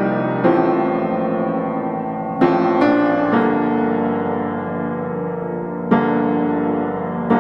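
Background piano music: sustained chords with a new chord struck every second or two.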